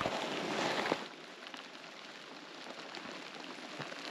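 Camera being handled and moved about, with rustling and rubbing noise on the microphone for about a second, then a fainter crackly hiss with small scattered ticks.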